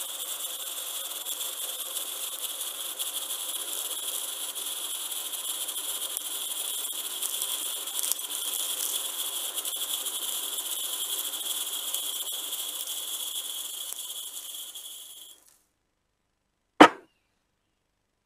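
Fine metallic granules pouring in a thin stream onto a pile: an even hiss with faint crackle and a steady high note within it, cutting off abruptly about fifteen seconds in. A single sharp click follows about a second and a half later.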